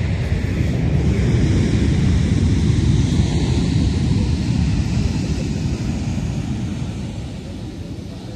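Aircraft engine noise, loudest about three seconds in and then fading away toward the end.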